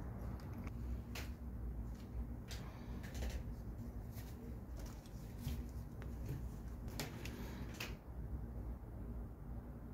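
Handling sounds as gloved hands work a lamp socket, electrical cord and jute twine: scattered soft clicks and rustles over a steady low hum.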